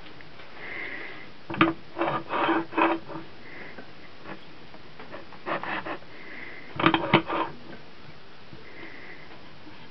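Metal clicks and knocks from the tailstock of a Levin watchmaker's lathe as it is worked by hand at its lever, in three short groups of clicks with a slight metallic ring.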